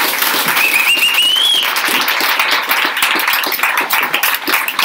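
Indoor audience applauding loudly at the end of a talk, dense clapping throughout, with a brief high rising whistle about a second in.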